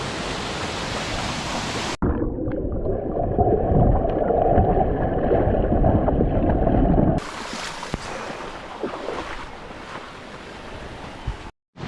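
Rushing water of a waterfall across several cuts: a steady hiss, then about two seconds in a louder, muffled rumble with the highs cut away, then a quieter hiss of falling water, broken by a brief dropout near the end.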